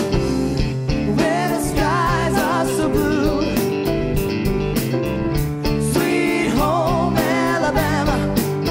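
Live pop-rock band playing: a singer with vibrato over electric guitars, bass, keyboards and a steady drumbeat, with two sung phrases.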